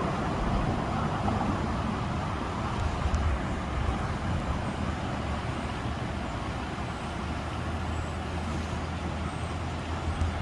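Steady rushing noise, most likely the flooded river running high, with a low steady hum underneath that grows stronger about three quarters of the way through.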